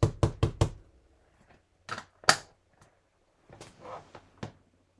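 Stamping tools and supplies being handled on a craft desk: a quick run of taps and clicks at the start, two sharp clicks about two seconds in, a soft rustle, and another click near the end.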